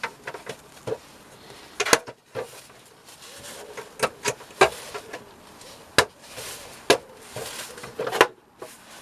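Plastic bird-feeder parts being handled and fitted together: a series of sharp clicks and knocks, about six of them, with quieter rustling between.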